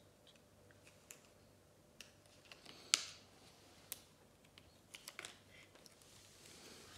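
Faint crackle and rustle of a paper sticker being peeled from its backing and handled, with scattered sharp clicks, the loudest about three seconds in.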